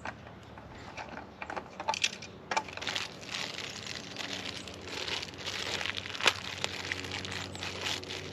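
Plastic bag and packaging crinkling and rustling as items are handled and taken out, with scattered clicks and one sharp knock about two thirds of the way through.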